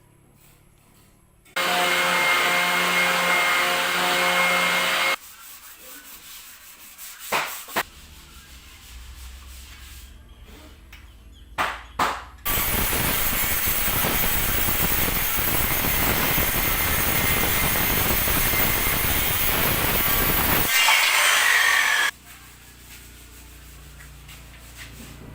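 A hand-held electric power tool running in two bursts, the first about three and a half seconds long with a steady motor whine, the second about ten seconds long, with a few knocks in the gap between.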